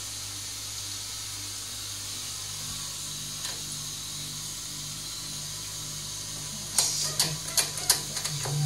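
Steady hiss of water from the high-level cistern refilling, over a low hum. Near the end comes a quick run of sharp clicks and knocks.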